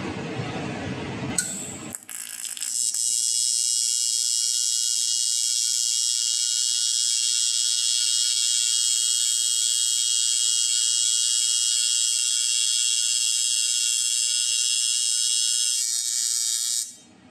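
AC TIG welding arc from a Lincoln Electric Square Wave TIG 200 on aluminum, set to 120 Hz: a steady high-pitched buzz that starts about two seconds in and cuts off shortly before the end.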